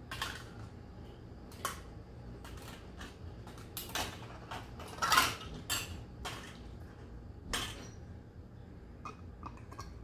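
Metal canning lids clinking against a stainless pot and each other as they are picked out of the hot water with a magnetic lid lifter and set on glass jars. The clinks are short, sharp and irregular, about a dozen in all, the loudest about five seconds in.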